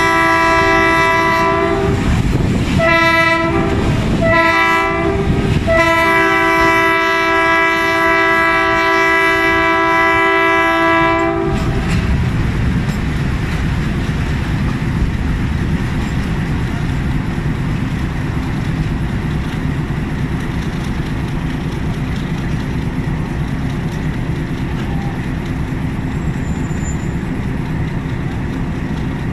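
GRU 20 diesel-electric locomotive's horn sounding: a long blast, a couple of short ones, then a long blast of about six seconds that stops about halfway through. After it, the steady rumble of the locomotive and the train's wheels clattering over the rails.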